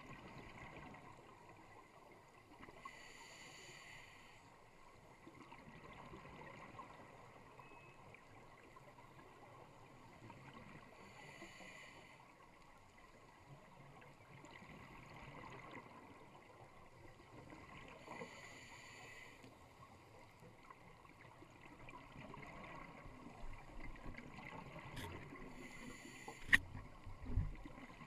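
Scuba diver's regulator breathing heard underwater: three bubbly exhalation bursts about seven or eight seconds apart over a steady muffled hiss. Near the end come a few sharp clicks and a low thump.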